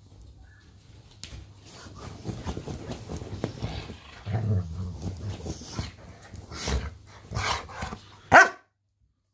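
A Rottweiler–Presa Canario cross dog playing wildly on her cushioned bed: scratching, scraping and rustling the fabric, with a low growl about halfway through. One short loud bark near the end, then the sound cuts off suddenly.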